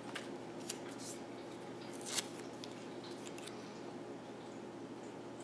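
Quiet handling of paper planner stickers: light rustles and a few short crisp clicks, the sharpest about two seconds in, as a sticker is peeled from its sheet and pressed down.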